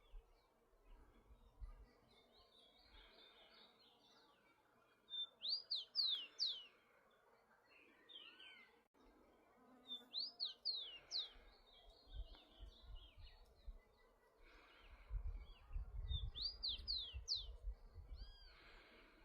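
Rufous-collared sparrow (tico-tico) singing: a short phrase of several high, quickly falling whistles, repeated three times about five seconds apart.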